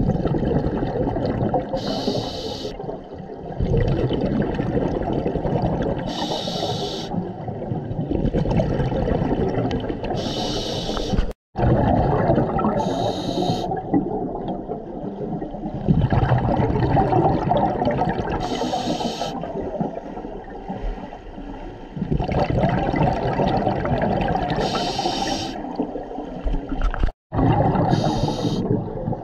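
A scuba diver's regulator breathing, heard underwater through the camera housing: a short hiss on each inhalation every four to six seconds, between long rumbles of exhaled bubbles. The sound cuts out briefly twice.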